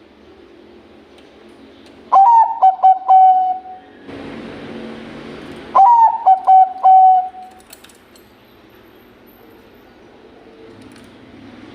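A Bangkok-type perkutut (zebra dove) singing two cooing phrases, each a quick stutter of notes ending in a drawn-out note. A brief hiss sits between the two phrases.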